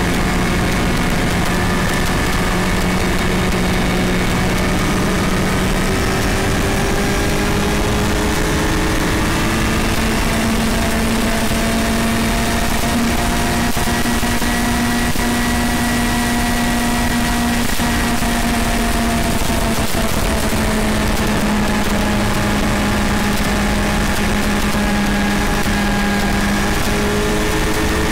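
Motorcycle engine running steadily at road speed under heavy wind rush on the onboard microphone; the engine note rises about a third of the way in and eases a little later.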